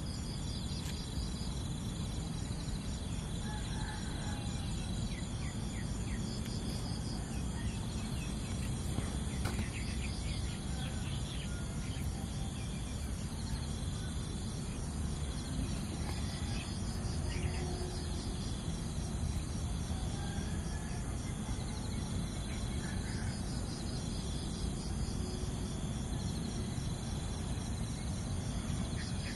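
Steady chorus of insects, a high-pitched pulsing drone that never lets up, over a low background rumble.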